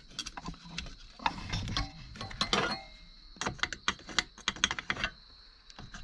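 Quick light clicks and rattles of small metal parts and hand tools being handled, in two flurries, one about a second in and another from about the middle.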